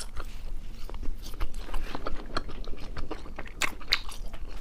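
A person biting off and chewing a chewy chili-coated spicy strip (latiao): a run of small clicking mouth sounds, with a couple of louder clicks near the end.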